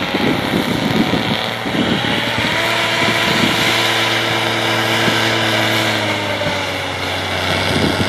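A vehicle engine running steadily under load, its pitch drifting slightly up and back down, over a steady rushing noise.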